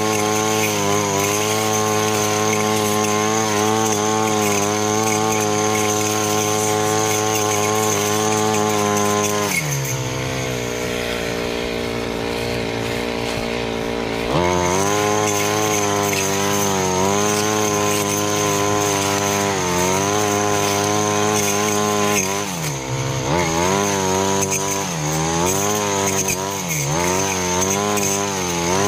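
Honda GX35 four-stroke brush cutter engine running at high revs with a steady high whine while its metal blade cuts weeds. About ten seconds in it drops to idle for a few seconds, then revs back up. Near the end the revs rise and fall several times as the blade works through the grass.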